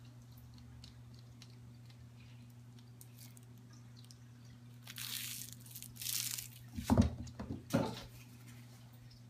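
A foil crinkle ball crinkling in two short bouts as it is handled, followed by two sharp thumps close by, the louder one about seven seconds in, over a steady low hum.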